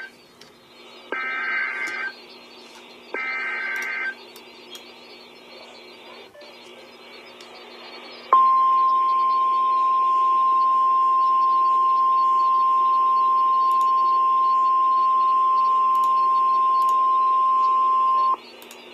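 Emergency Alert System weather-radio alert heard over steady radio hiss. Two bursts of SAME digital header data, each about a second long and two seconds apart, open the alert. After a few seconds of hiss, the single steady 1050 Hz NOAA Weather Radio warning alarm tone sounds for about ten seconds and cuts off, signalling that a warning message is about to be read.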